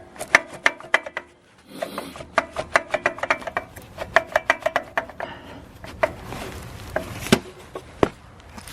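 Rapid metal-on-metal tapping: a tool being hammered in behind the old water pump of a Toyota 5S-FE engine to break it loose from its sealant. The strikes come in quick runs of several a second, each with a short ring, and slow to a few single hits near the end.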